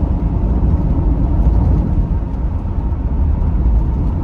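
Steady low road rumble inside a moving car's cabin: tyre and engine noise at highway speed, even throughout with no distinct events.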